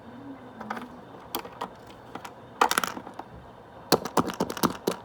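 Small plastic clicks and taps from Littlest Pet Shop toy figures and playset pieces being handled and set down, scattered at first, then a quick run of clicks near the end.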